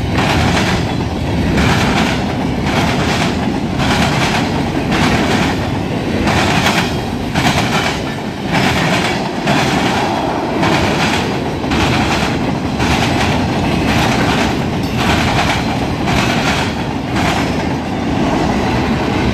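Freight cars rolling past, their steel wheels banging over the joints of a jointed railroad diamond crossing in a steady, repeating clickety-clack over the rumble of the moving train.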